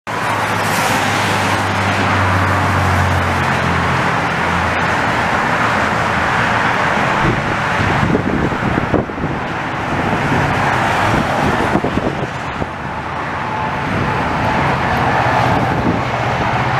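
Steady road-traffic noise: the rush of car tyres and engines, with a deeper rumble in the first few seconds.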